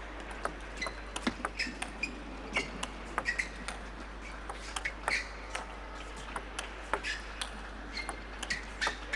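Table tennis rally: the celluloid ball clicking sharply off the bats and the table in a quick back-and-forth, over a faint hall background.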